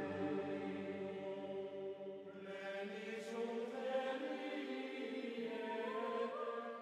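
Quiet background music of sustained, chant-like vocal tones holding slow chords, growing fuller about two and a half seconds in.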